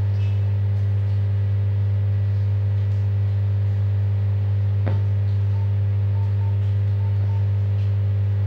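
Loud, steady mains hum from a homemade audio amplifier and its speaker, a low buzzing tone with overtones. A click comes about five seconds in, followed by a few faint short beeps.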